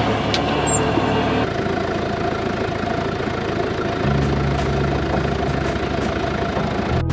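John Deere loader tractor's engine running steadily. Its note changes about a second and a half in and again about four seconds in.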